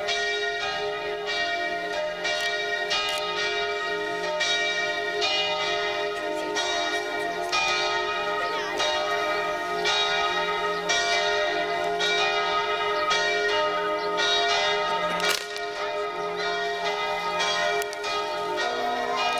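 Bells pealing, with a new stroke about every second over a continuous ring of overlapping tones. There is a single sharp crack about three-quarters of the way through.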